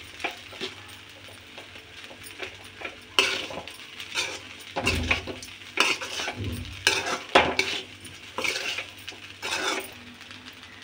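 A metal spoon stirring cooked rice in a metal kadai: irregular scrapes and clinks of spoon against the pan, with a few sharp knocks, busiest from about three seconds in and easing off near the end.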